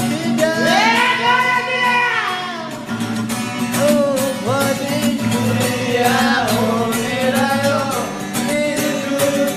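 Music: a song with a singer's voice holding and bending long notes over a steady accompaniment with a regular beat.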